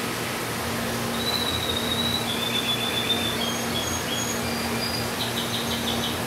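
Steady hiss with a low hum underneath. Over it, from about a second in, come thin high-pitched chirps at several pitches, ending in a quick trill near the end.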